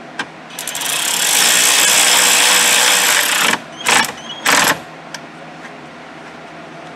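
Cordless drill/driver running on a screw in a car's dashboard for about three seconds, then two short bursts as it seats the screw.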